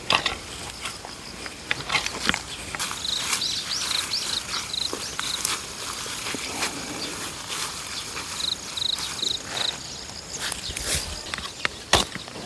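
Two short runs of small, high, evenly spaced chirps over scattered soft clicks and scuffs. There are sharper knocks near the end.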